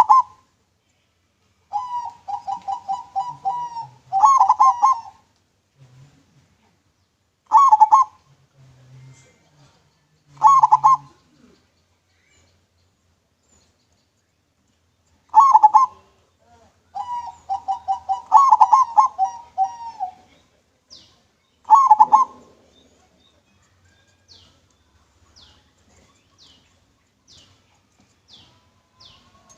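A local zebra dove (perkutut) cooing in a clear voice. It gives short coo phrases, some running into quick rolling strings of rapid notes, with pauses between phrases and a longer silence about halfway through.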